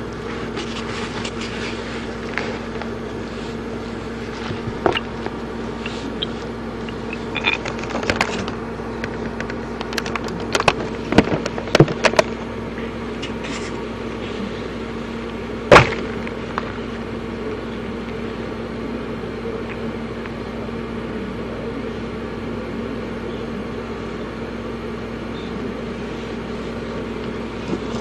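Eggshells cracking and crunching under foot inside canvas high-top sneakers, heard as scattered sharp cracks and clicks. The loudest single crack comes about 16 seconds in. A steady low hum runs underneath throughout.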